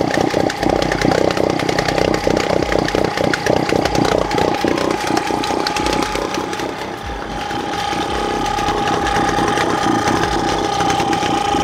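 Small two-stroke outboard motor running steadily in a test bucket of water on fresh fuel, with a steady high note over its fast firing; its cooling water pump is giving plenty of pressure.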